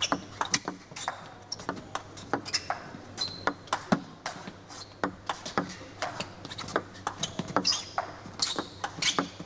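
Table tennis ball in a long rally: quick sharp clicks of bat hits and table bounces going back and forth, several a second, with occasional short squeaks of players' shoes on the court floor.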